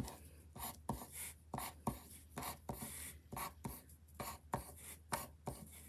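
Quick short strokes of a drawing tool scratching on paper, about three a second, as a row of small X's is drawn.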